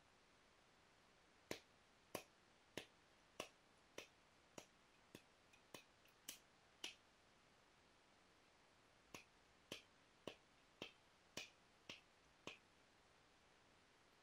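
Light knapping taps of a tool on a piece of Rainy Buttes stone: a run of about ten short, sharp, evenly spaced strikes, a pause of about two seconds, then seven more.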